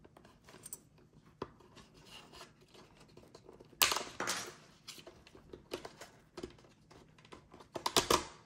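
A small prying tool scraping and clicking against the side cover piece inside a Shoei Neotec II helmet as it is worked loose, with sharper snaps about four seconds in and again near the end.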